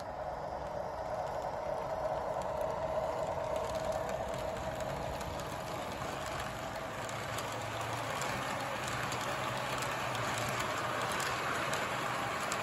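Electric model subway train running along its track: a steady whir of motor and gearing, with the wheels rumbling and ticking lightly over the rails.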